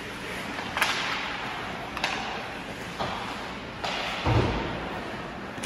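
Ice hockey play: four sharp clacks of stick and puck about a second apart, then a heavy low thud, like the puck or a player hitting the boards, over the steady hiss of the rink.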